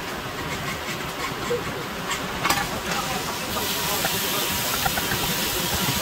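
A steady hiss that grows louder and brighter about three and a half seconds in, with a few light clicks, the sharpest about two and a half seconds in.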